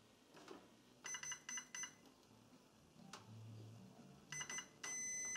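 A multimeter's continuity buzzer beeps as test probes are held to a MIG welder's torch-switch wiring. There is a run of short, broken beeps about a second in and more broken beeps after about four seconds, then a steady beep near the end as the probes make firm contact. The beep shows the wiring has continuity and is intact.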